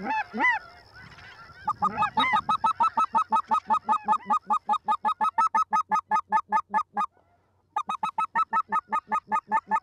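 Hand-held goose call blown in a fast, even string of short honks, about five a second, with a brief pause near the end, calling snow geese in. A few snow geese honk overhead at the start.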